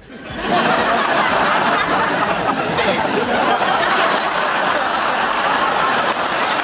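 Studio audience laughing and applauding, swelling up sharply about half a second in and holding loud and steady.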